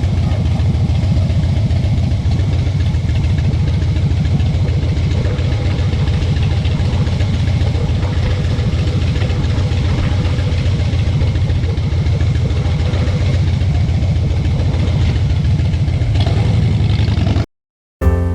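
Motorcycle engine running steadily, heavy in the low end, cutting off suddenly near the end.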